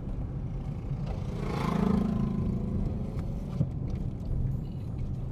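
Vehicle driving along a road, heard from inside: a steady low rumble of engine and road noise, with a louder swell carrying a low hum about two seconds in.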